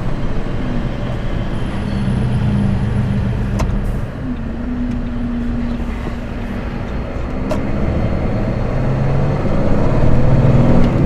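Heavy goods lorry's diesel engine and road noise heard from inside the cab while driving, the engine note shifting in pitch a few times as the truck changes speed.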